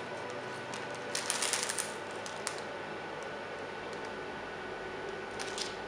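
Clear plastic protection film crackling as it is peeled from its backing liner and handled: a short run of crackles about a second in and a brief one near the end, over a steady faint hiss.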